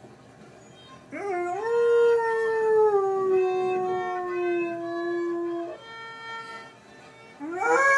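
Basset hound howling. One long howl begins about a second in, rises briefly, then holds and slowly sinks in pitch before stopping. A second howl starts rising near the end.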